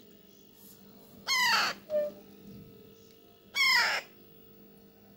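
A 25-day-old hand-fed parrot chick giving two loud, harsh squawks about two seconds apart, each falling in pitch. These are food-begging calls made while it is being spoon-fed.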